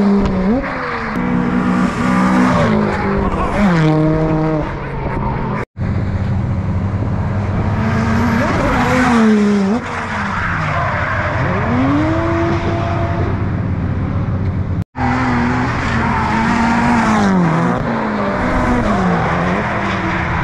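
Drift cars going past sideways at full throttle, their engines revving up and down over and over as the tyres squeal. The sound drops out for an instant twice.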